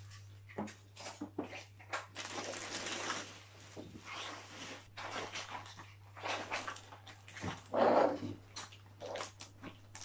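Clear plastic packaging bag rustling and crinkling as a booster car seat is pulled out and handled, with scattered light knocks and a louder burst near the end.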